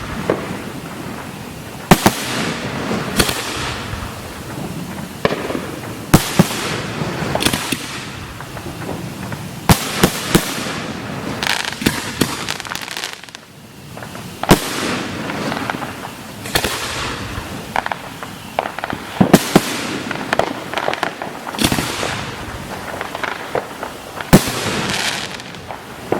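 Fireworks display: aerial shells bursting in quick, irregular succession, sharp bangs every second or so over steady crackling, with a short lull about halfway through.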